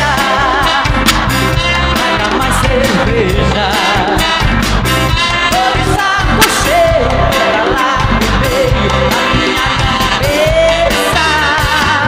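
Live sertanejo band performance: a man sings lead into a handheld microphone over the band's steady beat.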